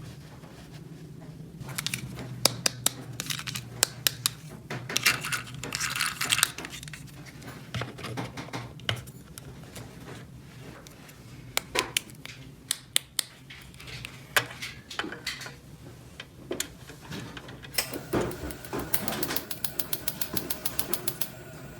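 Small plastic toy kitchen pieces being handled: scattered sharp clicks and taps, then a fast even run of clicking, about ten a second, near the end.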